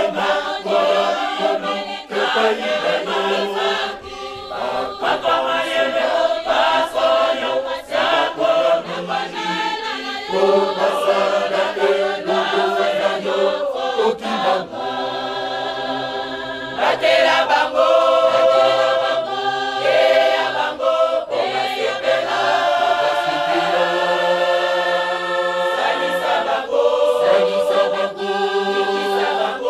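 A mixed choir of men and women singing together in harmony, with long held chords in the second half.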